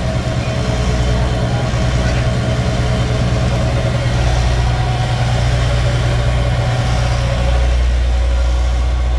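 Steady low drone of a running ice cream truck's machinery, heard from inside the truck, like an idling engine, with a few steady higher hums over it. The low part grows a little stronger about halfway through and again near the end.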